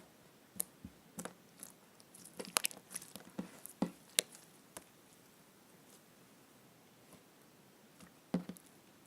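Slime being squeezed and poked by hand, making scattered small wet clicks and pops, clustered about two to four seconds in and again near the end.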